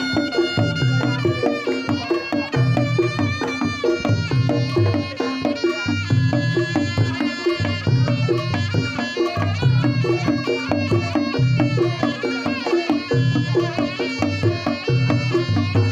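Reog Ponorogo gamelan music: a reedy slompret melody with bending ornaments over kendang drumming and a steady pulse of deep low strokes.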